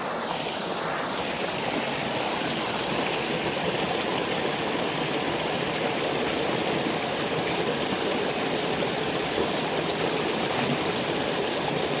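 Mountain stream water splashing down a small rocky cascade: a steady, even rush of running water.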